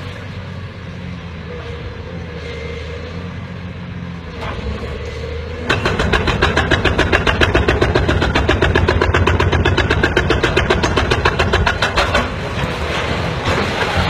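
A heavy machine's diesel engine running steadily; about six seconds in, a loud, fast, even rattle starts and goes on for about six seconds before the engine runs on alone.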